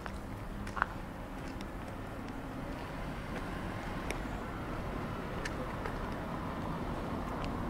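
City street ambience: a steady, even wash of noise with a low rumble that slowly grows louder, with scattered light ticks and a brief high squeak about a second in.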